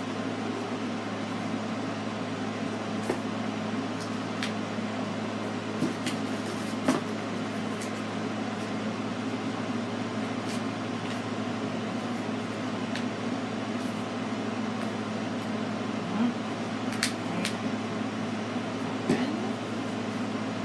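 A steady low hum with a few light taps and rustles scattered through it as folded paper pieces are handled and tucked into one another.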